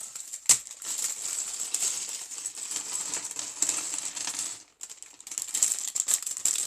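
Small plastic LEGO pieces clattering and rattling as they are tipped out of a freshly opened parts bag: a dense run of small clicks, with one sharper knock about half a second in and a short lull near five seconds before more rattling.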